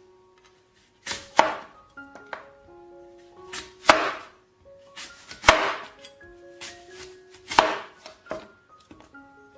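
Knife chopping food on a cutting board: several sharp single strokes, irregularly spaced about a second or two apart, over soft background music with a slow melody.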